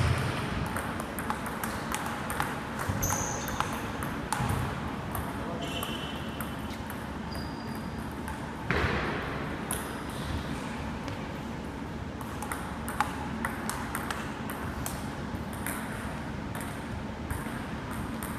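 Table tennis ball clicking off rubber paddles and the table top during rallies: many quick, sharp taps at an irregular rhythm.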